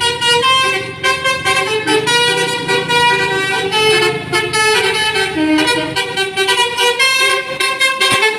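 Tour bus's Basuri v3 'telolet' musical horn playing a melody: loud honking notes that step in pitch every fraction of a second.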